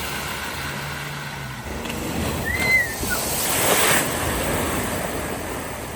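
Water rushing through a flooded road ford, with a car's engine hum fading out in the first second or two. A louder swell of splashing comes about three and a half seconds in, and a short high chirp comes a little before it.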